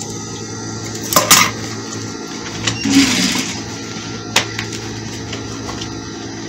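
Fabric and sewing-machine handling: sharp clicks about a second in and again near four and a half seconds, and a brief hiss about three seconds in, over a low steady hum.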